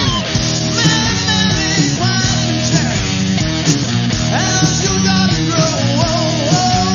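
Rock band playing: an electric guitar lead with bending notes over bass and drums keeping a steady beat.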